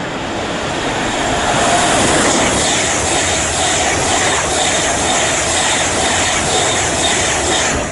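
Class 390 Pendolino electric train passing through the station at speed without stopping. A loud rush of wheels and air builds over the first two seconds, with a regular beat of wheel sets about twice a second. It drops away sharply as the last coach clears, just before the end.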